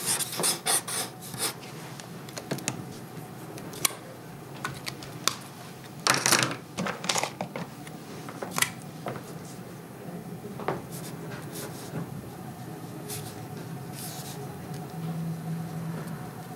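Pen scratching across paper in quick sketching strokes, in bunches near the start and again about six seconds in, with single strokes between.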